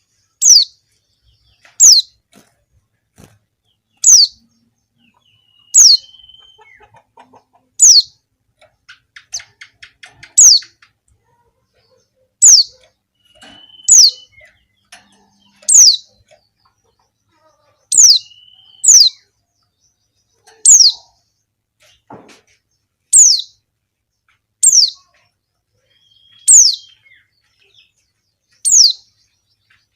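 Female white-eye (pleci) giving a short, sharp call about sixteen times, roughly every two seconds, each note falling quickly in pitch. This is the female call used as a lure to set male white-eyes singing.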